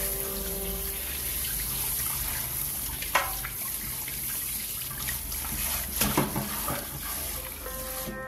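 Kitchen tap running steadily into a stainless steel sink while hands rub and rinse a whole fish under the stream. A short sharp sound of the fish being handled comes about three seconds in, and a louder cluster around six seconds.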